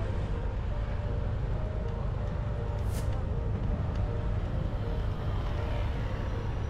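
Steady low road and engine rumble of a vehicle driving through city traffic, with a brief hiss about three seconds in.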